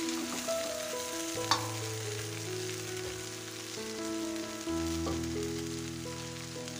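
Boiled macaroni and vegetables sizzling in a hot metal kadhai as the pasta is tipped in and turned with a metal spatula. There is a single knock of spatula on pan about a second and a half in.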